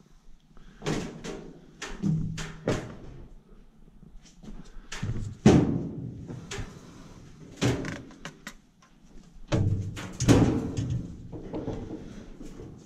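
Boots knocking and clanking on metal steps as someone climbs down them one step at a time. The loud, irregular knocks and thuds ring briefly, and the loudest come about five and a half and ten seconds in.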